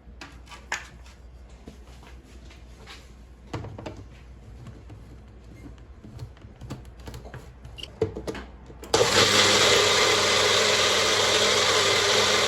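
A few light knocks and clinks of kitchen utensils, then an electric blender starts about nine seconds in and runs loud and steady, puréeing the red-berry sauce, until it cuts off suddenly.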